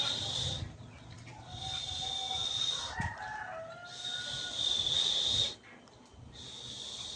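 An Aseel chicken giving a drawn-out, crow-like call between about two and four and a half seconds in, over a high buzzing that pulses on and off about every two seconds.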